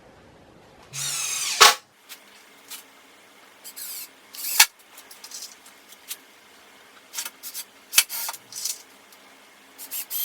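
Cordless drill-driver run in short bursts, driving screws to fix new replacement boards to a wooden seat. The longest burst comes about a second in and ends in a sharp click; sharp knocks and clicks follow in the middle and near the end.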